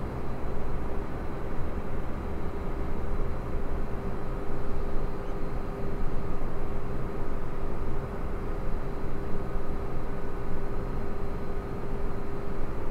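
Steady low rumble of distant traffic, with a faint steady hum running through it.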